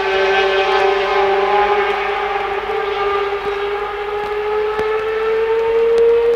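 Ferrari 412 T2 Formula 1 car's 3.0-litre V12 at high revs, one sustained note whose pitch climbs slowly and steadily as the car accelerates.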